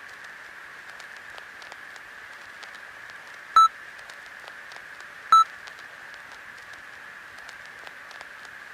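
Two short, loud electronic beep tones, each a fraction of a second long and about two seconds apart, over a steady hiss.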